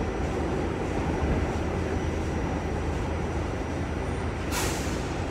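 R46 subway car running on the rails: a steady rumble and rail noise, with one short hiss about four and a half seconds in.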